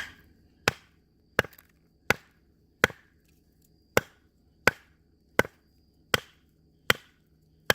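A wooden baton knocking on the spine of a field knife made by José Ruiz, driving it through a piece of very hard wood. There are about eleven sharp knocks at a steady pace of roughly one and a half a second, with one slightly longer pause about a third of the way in. The wood is slow to split, which the batoner puts down to a knot.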